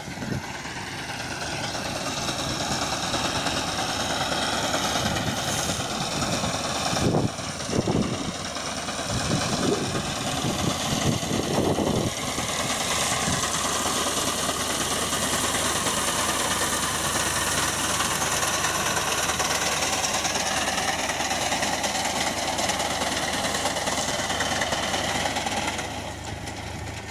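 FIAT 480 tractor's diesel engine running steadily under load as its front-mounted reaper cuts standing wheat.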